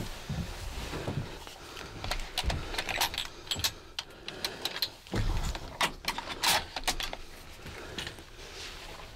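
Handling noise of people shifting about in a cramped hunting blind: clothing rustling against the camera, with scattered clicks and knocks of gear and a cluster of louder knocks and thuds about five to seven seconds in.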